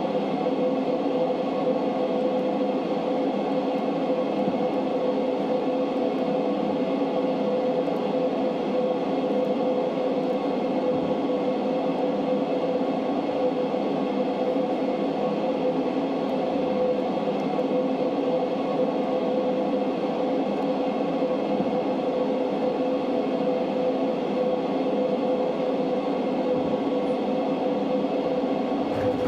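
Steady ambient electronic drone: layered held tones over a hiss, unchanging and without any beat.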